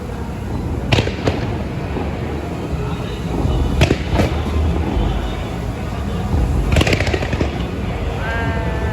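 Fireworks exploding: a handful of sharp bangs over a steady low rumble of more distant bursts.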